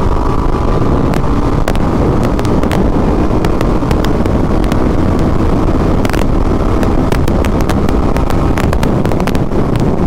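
Motorcycle riding at about 70 mph, heard as loud, steady wind noise inside the helmet. It is picked up by a lavalier mic wedged behind the helmet padding, with the visor not fully closed, and frequent small crackles run through it.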